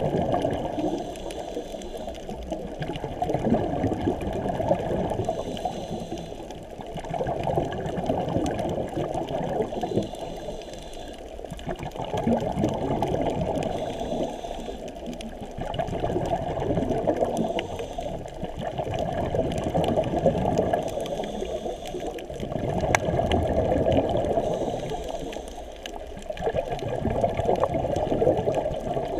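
Muffled underwater rushing and bubbling, heard through a GoPro's waterproof housing, swelling and easing about every four to five seconds.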